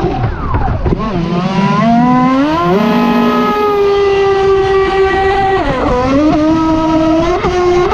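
Proboat Impulse 31 RC boat's brushless electric motor whining at speed on 3S LiPo, over the hiss of water spray against the hull. The whine drops sharply just after the start, climbs back over the next two seconds, and dips briefly again about six seconds in.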